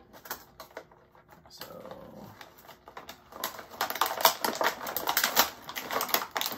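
Clear plastic blister packaging of an action figure being worked loose from its cardboard card by hand: a run of sharp crackles and crinkles. The crackling is sparse at first and grows dense and loud from about halfway through.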